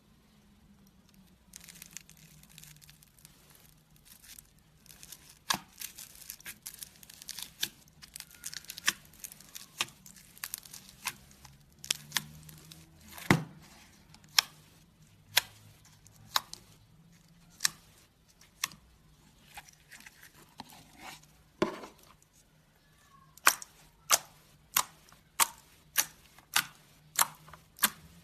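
Slime being squeezed and pressed by hand, crackling with sticky pops. Near the end the pops come in a steady run, roughly one every half second or so.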